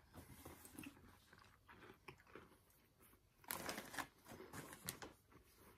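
Faint chewing of a raspberry Linzer jam cookie, with a denser, louder patch of biting and chewing about three and a half seconds in.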